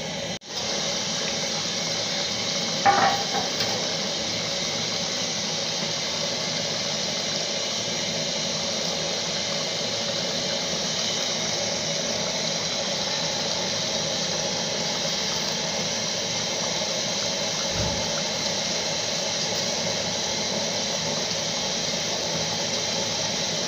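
Pot of jollof rice boiling on the stove: a steady bubbling hiss, with a single sharp clink about three seconds in.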